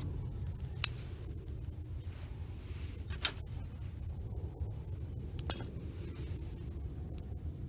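Wood campfire burning with a steady low rumble and a few sharp crackling pops, the loudest about a second in.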